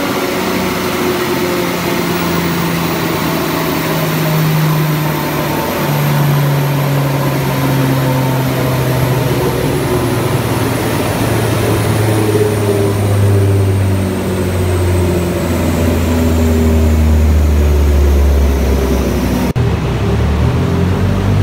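Mitsubishi Lancer Evolution X's turbocharged four-cylinder running on a chassis dynamometer, its pitch falling slowly in steps as engine and rollers wind down, with a high whine gliding down alongside. The sound changes abruptly near the end.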